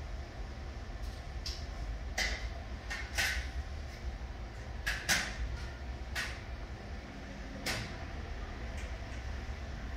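A steady low hum with several short knocks and clicks scattered through it, the loudest pair about five seconds in.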